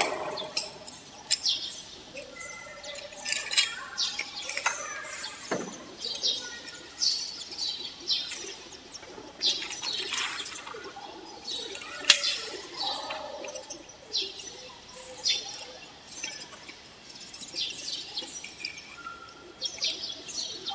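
Birds chirping over light metal clinks and rattles of steel prestressing wire, clamp and anchor grips being handled, with one sharp click about halfway through.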